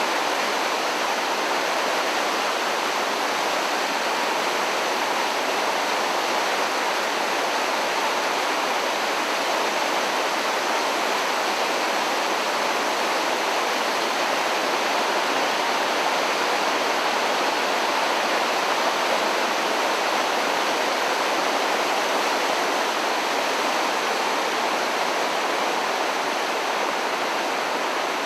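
Floodwater rushing steadily down a swollen creek in flood, a loud, unbroken rush of water.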